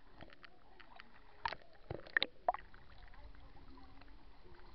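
Shallow water sloshing and lapping close to the microphone, which sits at the waterline, with scattered small splashes and clicks; a few sharper ones come in the middle.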